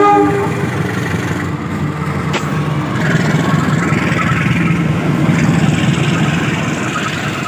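Diesel locomotive passing close below, its engine running with a steady rumble that grows louder about three seconds in. A horn blast cuts off within the first second.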